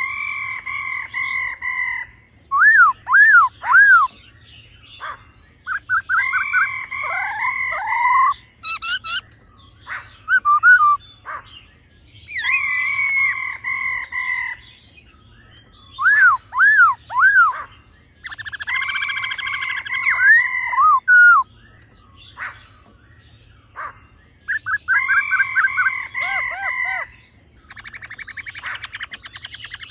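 Black-throated laughingthrushes singing: loud, clear whistled phrases of sliding notes in bursts every couple of seconds, broken by short pauses. A harsher, buzzy rattling call comes in between them, last of all near the end.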